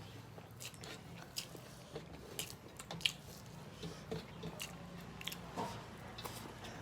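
Close-up eating sounds: chewing with irregular small wet clicks and lip smacks of someone eating a rice meal, here soft fried Malabar spinach berries, over a low steady hum.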